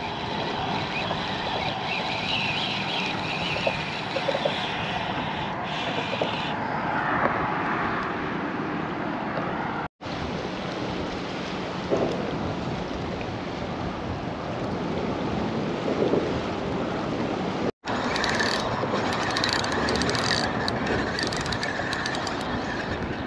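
Steady wind buffeting the microphone over open water.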